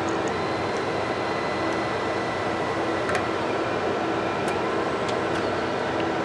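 Steady whirr of cooling fans in a server cabinet, with a constant hum. Three light clicks, about three, four and a half and five and a half seconds in, as a card is pushed into the UPS slot by hand.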